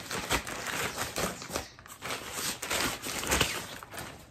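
Plastic mailer bag crinkling and rustling in irregular bursts as it is handled open and a paperback book is pulled out.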